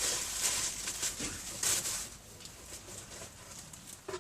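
Packaging rustling and crinkling as an accessory kit box is opened and unpacked by hand, in irregular bursts with the loudest at the start and again about a second and a half in.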